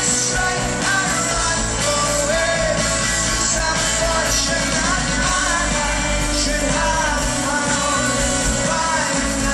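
Rock song playing, a lead singer's voice carrying a wavering melody over a full band with a steady low end.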